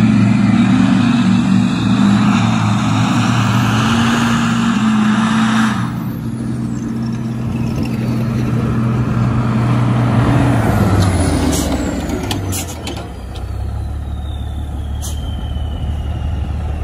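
Diesel engines of Duramax pickups and a Cummins-powered cabover semi revving hard under full throttle, pitch rising and falling, with tires churning through mud. About ten seconds in the engine note drops and settles to a steadier, lower pitch, with a few sharp clicks.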